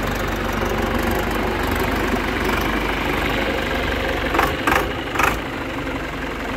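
John Deere 2420 tractor engine idling steadily. Three short sharp noises cut in over it about four and a half to five seconds in.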